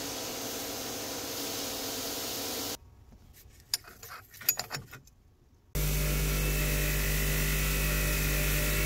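Abrasive blasting in a blast cabinet hisses steadily for about the first three seconds, then cuts off to a quiet stretch with a few sharp clicks of metal wrench parts being handled. About two seconds later a bench grinder's wheel starts up and runs steadily with a strong low hum.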